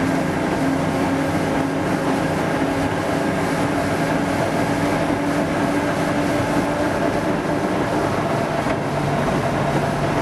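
A locomotive engine running steadily, heard from inside the cab with a constant rail-vehicle rumble. Near the end its humming note shifts lower.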